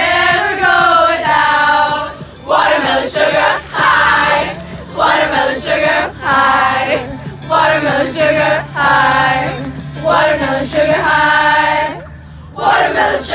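A crowd of young women singing together loudly in unison, in sung phrases with short breaks between them and a longer pause near the end.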